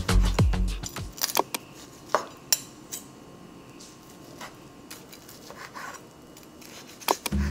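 Chef's knife and fork cutting a grilled chicken breast on a bamboo cutting board: scattered taps and clinks of the blade and fork on the board. Background music fades out in the first second and comes back near the end.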